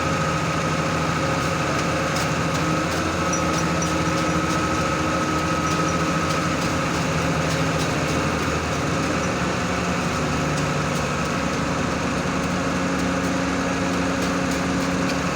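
Concrete truck's diesel engine running steadily at idle, with a constant high whine over its hum.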